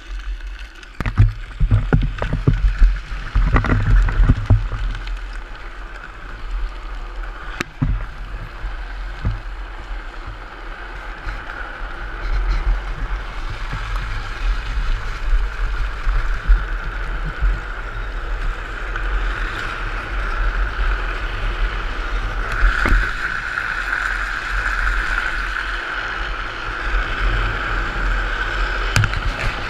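Drift trikes riding downhill on asphalt: wind buffeting the on-board camera microphone as a low rumble, with the hard plastic-sleeved rear wheels scraping and sliding on the road, the scraping growing louder from about halfway in. A few knocks in the first few seconds as the trikes set off.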